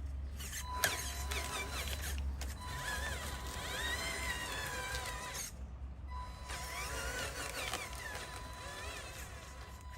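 Small electric motors and gearing of RC construction models running, whining up and down in pitch as they speed up and slow down, over a low hum and a steady high tone that drops out twice. There is one sharp click about a second in.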